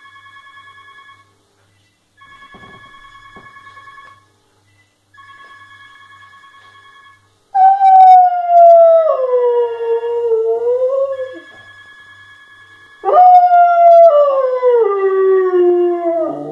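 A telephone rings in repeated bursts of about two seconds, and about halfway through a Weimaraner howls along with it: two long howls, each sliding down in pitch and much louder than the ringing.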